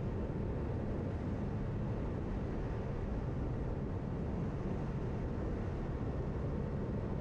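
Boat motor running steadily, a low even rumble.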